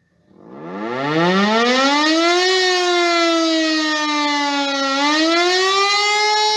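Rooftop civil-defence siren starting up, its pitch climbing from low to a loud wail over about two seconds, then sinking slowly and rising again. This is the start of the rising-and-falling tone that warns the population of danger.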